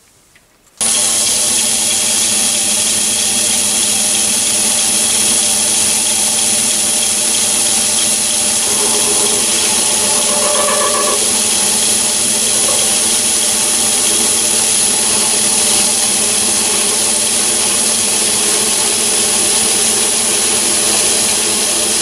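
Myford ML7 lathe running steadily while a light skim cut puts a shallow groove in a steel shaft, with a steady high-pitched whine over the machine's hum. The sound comes in abruptly about a second in.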